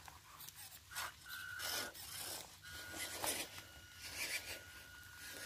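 Small 1:16 RC pickup truck (WPL C24-1) crawling off over dirt and leaves. Its electric drive gives a thin high whine, brief at first and then steady from about halfway, over scattered scrapes and rustles of the tyres on the ground.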